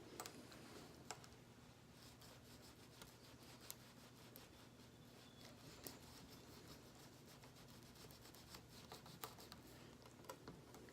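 Faint rubbing of a cloth on a stainless steel watch band, with small scattered clicks throughout.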